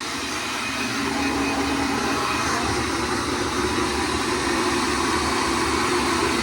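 Handheld hair dryer switched on and blowing steadily, a rushing airflow with a low motor hum, drying melting spray on a lace front wig.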